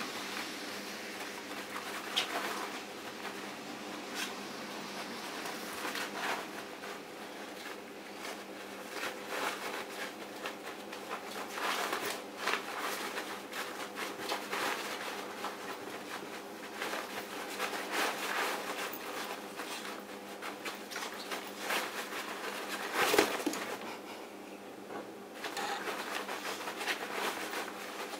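A dog rummaging in a heap of cloth jackets, with the fabric rustling and scratching under its paws and nose in scattered short bursts. A louder thump comes late on. A steady low hum runs underneath.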